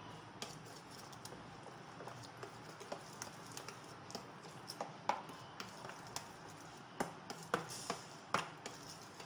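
Metal spoon stirring a thick yogurt marinade in a ceramic bowl, knocking and scraping against the bowl in irregular light clicks.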